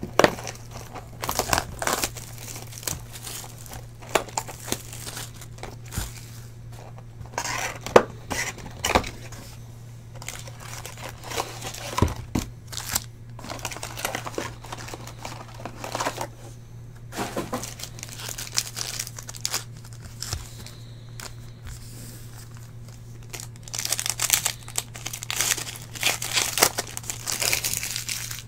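Plastic wrapping of a Panini Select basketball card box and its packs crinkling and tearing as they are opened by hand, in scattered crackles that grow denser near the end. A steady low hum runs underneath.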